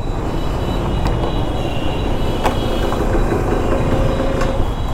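Steady rumble of vehicle engines and traffic, with a few faint clicks.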